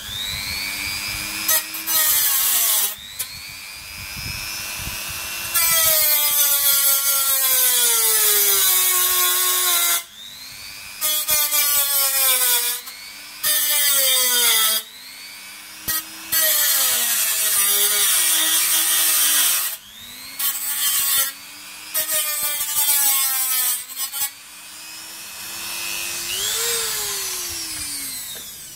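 Handheld rotary tool with a small grinding bit, grinding and smoothing the cut edge of a snorkel hole in a sheet-steel car fender. It cuts in and out in repeated gritty bursts over a high motor whine that rises and falls in pitch. The motor spins down near the end.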